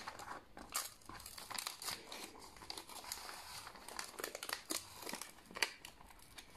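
Gift-wrapping paper being unwrapped from a box by hand: soft, irregular crinkling and tearing, with a few sharper crackles and one louder snap about five and a half seconds in.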